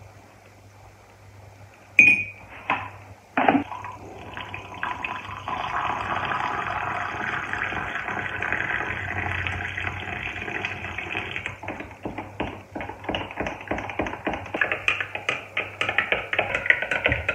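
A metal spoon taps against a drinking glass three times. Liquid is then poured steadily into the glass for about seven seconds. A spoon then stirs the coffee in the glass, clinking quickly against its sides.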